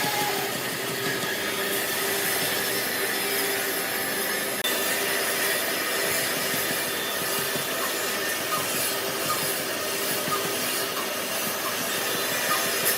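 A power tool working wood, running steadily with a noisy hiss and a faint hum, with a brief dip about five seconds in.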